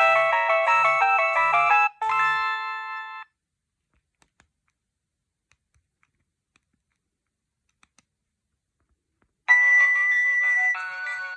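Nokia 6610 ringtones. A tune of several notes at once over a low beat ends about two seconds in with a few held chords. After about six seconds of near silence with a few faint clicks, a different ringtone starts near the end.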